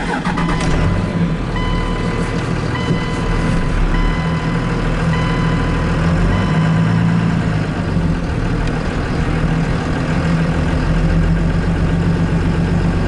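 Pickup truck engine starting and then idling steadily. A repeating electronic beep from the truck sounds about once a second for a few seconds early in the idle.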